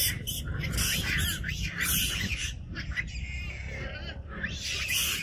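Long-tailed macaques screaming during a squabble: a run of shrill, high squeals and squawks in bursts, with a short lull about three seconds in.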